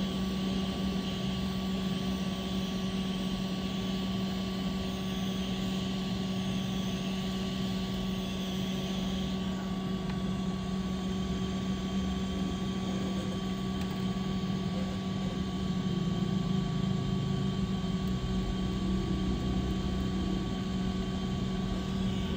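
Steady machine hum: a constant low drone over an even whir, unchanging throughout.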